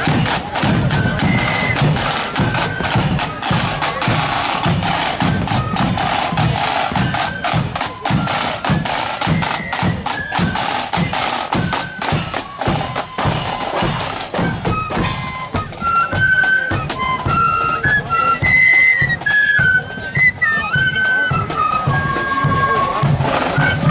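A marching flute band playing a march: side drums and bass drum beating a steady rhythm under a flute melody. About halfway through, the flute tune comes through more clearly over sparser drumming.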